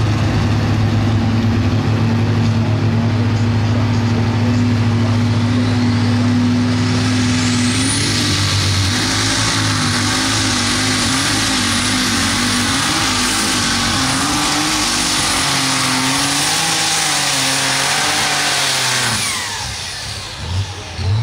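Turbocharged light super stock pulling tractor running loud at full power through a pull. A high whine climbs about seven seconds in, the engine note wavers near the end, and the sound falls away sharply about nineteen seconds in as the run ends.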